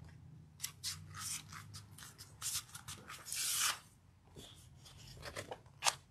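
Thick paper handled by hand on a gel printing plate: laid down, rubbed and shifted, giving short scratchy rustles. One longer, louder rustle comes a little past three seconds in.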